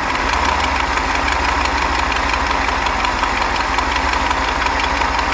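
Moomba boat's inboard engine idling steadily with a rapid, even pulsing beat: the engine has an exhaust leak.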